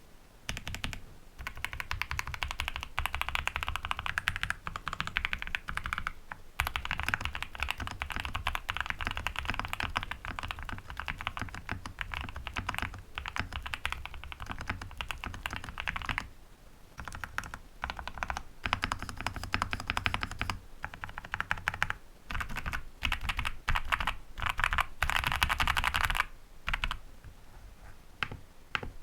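Fast typing on a GMK67 mechanical keyboard with factory-lubed Gateron Oil King linear switches and cherry-profile PBT keycaps, in a case with a tape mod and extra foam. It makes a dense run of keystrokes, broken by a few brief pauses.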